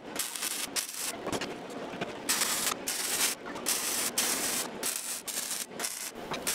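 Wire-feed (MIG) arc welding on steel tubing: the arc crackles and hisses in runs of about a second, broken by several short pauses between welds.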